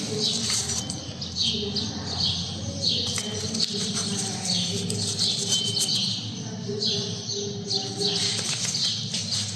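Brush scrubbing the brake caliper bracket clean: short, squeaky rasping strokes, about two a second, with brief pauses between runs.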